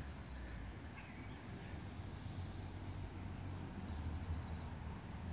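Faint, short high chirps of small birds, a few scattered through, over a low steady rumble.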